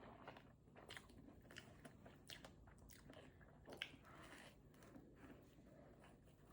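Faint chewing of a biscuit, with soft mouth clicks and smacks scattered through; the sharpest comes about four seconds in.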